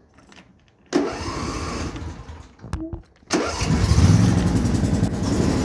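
John Deere lawn tractor engine being started: the starter cranks about a second in, stops briefly, then the engine catches a little after three seconds and settles into a steady run.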